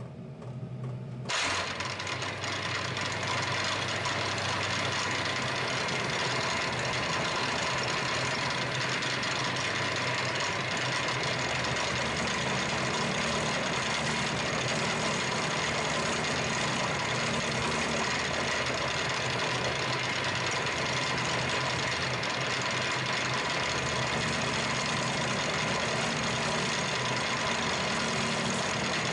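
Milling machine running, and about a second in an end mill starts cutting steadily into a model engine cylinder, facing its valve seat; an even cutting noise over the spindle's hum.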